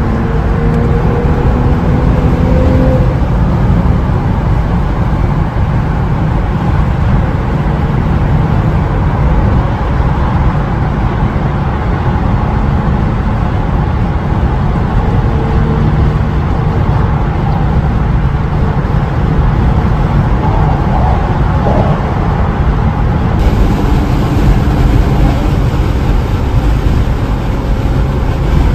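Steady road noise inside the cabin of a 2024 Porsche Macan GTS cruising at highway speed: a loud low rumble of tyres and wind, with a faint engine note rising briefly near the start.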